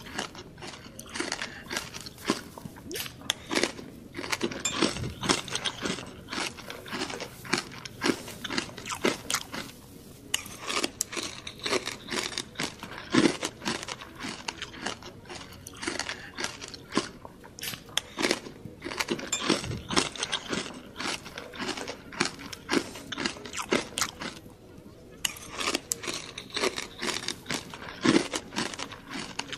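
Close-up chewing and biting of crispy deep-fried pork knuckle (crispy pata), with many irregular crisp crunches of the fried skin and two short pauses.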